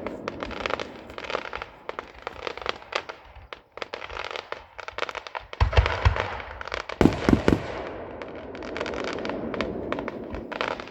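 Fireworks display: steady crackling of bursting shells, with louder booms about six seconds in and again around seven seconds.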